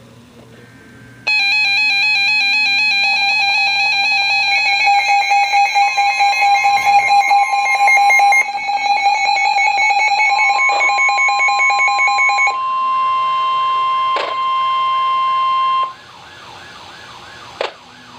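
Emergency Alert System attention signal: a loud, steady electronic alert tone with a pulsing warble layered over it starts about a second in. It shifts twice and cuts off suddenly about two seconds before the end. A fainter repeating warble follows.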